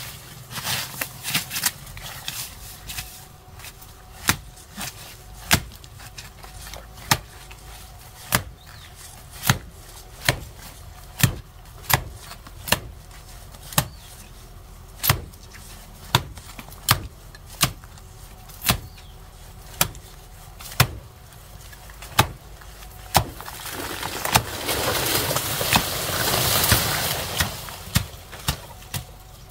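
A blade chopping into a wild banana stem, sharp blows about once a second. From about 24 seconds the cut plant topples with a rustling crash of leaves, then the chopping picks up again near the end.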